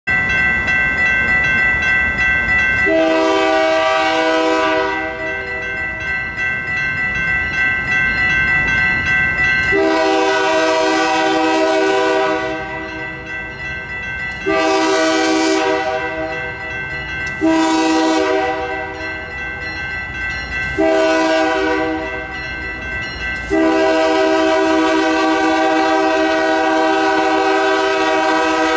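Horn of a Canadian Pacific GE AC4400CWM locomotive sounding a crossing sequence as it approaches: six blasts, the last one held to the end. Between the blasts the grade-crossing signal bell rings steadily and the train rumbles.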